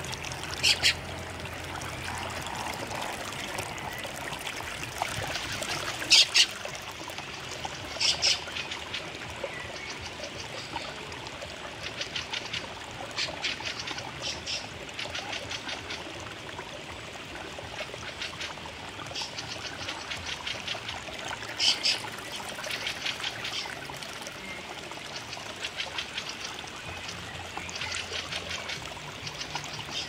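Rapid, harsh chattering call series from fieldfares, each burst a quick run of clicks, recurring every few seconds over a steady trickling, running-water hiss.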